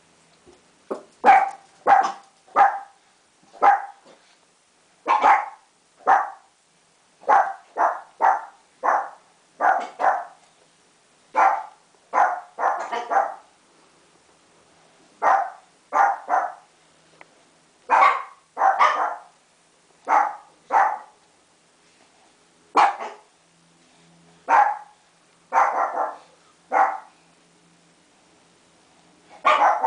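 A dog barking over and over in single short barks, roughly one a second, with a few brief pauses between runs.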